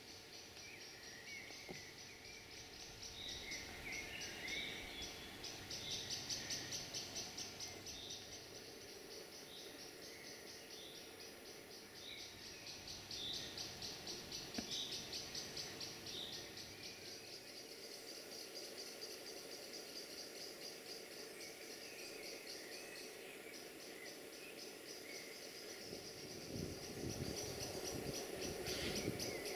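Crickets chirping in a steady, fast trill, with scattered short bird calls over it. A low rumble builds near the end.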